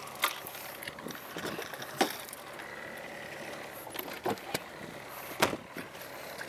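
A handful of sharp knocks and rattles as gear and fittings are handled on a small boat's deck, over a steady wash of wind and sea.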